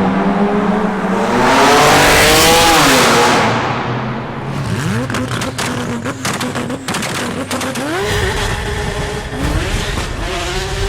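A performance car's engine and exhaust revving up and down, loudest around two seconds in. A run of sharp exhaust pops and crackles follows from about five to eight seconds in, then more revs.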